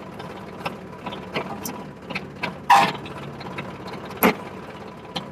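Sonalika DI 35 tractor's diesel engine idling while its hydraulics turn a reversible two-bottom mouldboard plough over, with metal clanks and knocks from the plough and hitch, the loudest two about two and three-quarter and four and a quarter seconds in.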